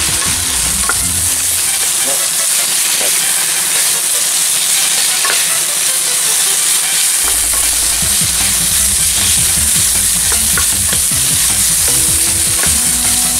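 Eggplant, manganji peppers and crumbled hamburger sizzling in a frying pan as a wooden spatula stirs and turns them, a steady frying hiss with a few light knocks of the spatula against the pan.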